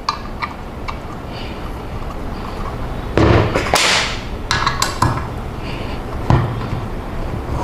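Metal parts of a monitor arm stand knocking and clicking together as bolts and nuts are fitted by hand, with a louder rattle lasting about a second, about three seconds in.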